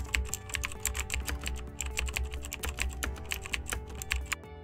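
Rapid computer-keyboard typing clicks, about eight a second, laid over soft background music with a low steady bass, in time with on-screen text being typed out letter by letter.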